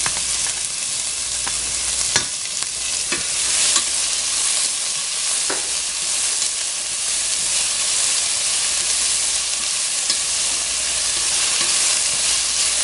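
Diced onion sizzling steadily in hot vegetable and olive oil in a large pot, with a few sharp clicks from stirring.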